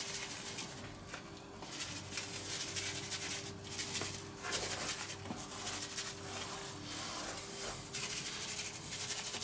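Dry spice rub shaken from a paper bag onto raw ribs in a steel tray: the paper bag rustling and the granules falling in irregular surges, with a hand rubbing the seasoning into the meat. A faint steady hum runs underneath.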